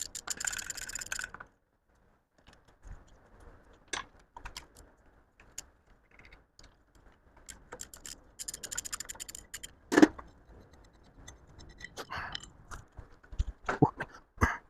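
Hand tools working the motor mount and gusset bolts on a Mazda B-series engine: two runs of rapid metallic clicking, scattered clinks and scrapes, and one sharp knock about ten seconds in. The bolt is very tight.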